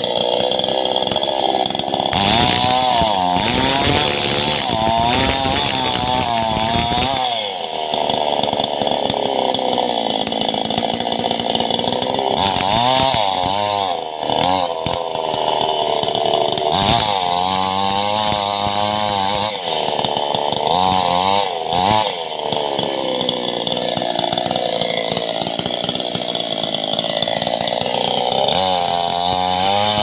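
Two-stroke chainsaw ripping a log lengthwise into planks, running under load throughout. Its engine pitch keeps dipping and rising as the chain bites into the wood.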